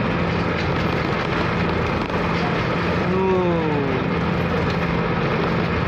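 Steady drone of the KMP Sumut 2 ferry's engine under a constant rush of strong wind and wave noise. About three seconds in, a short call with falling pitch rises briefly over it.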